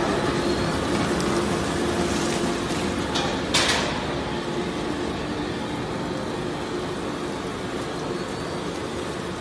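Plastic recycling shredder and crusher line running steadily, a dense mechanical din of the machine and its conveyors working through shredded plastic waste. A brief, louder rushing burst about three and a half seconds in.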